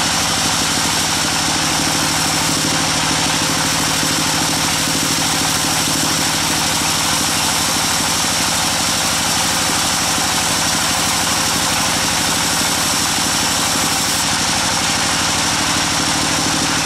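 Band sawmill running with a steady mechanical drone while a large timber slab is fed through the blade.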